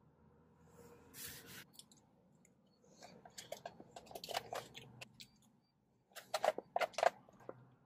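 Mouth clicks and chewing of someone eating ice cream off a plastic spoon from a plastic cup, in two clusters, the louder one about six seconds in.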